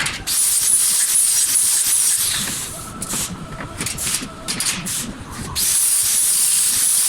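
Electric welding arc crackling and hissing, strongest near the start and again from about two-thirds of the way in, weaker and broken in between.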